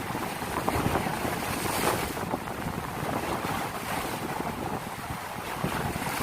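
Wind buffeting the microphone over a rough sea, with waves splashing and churning, steady and gusty throughout.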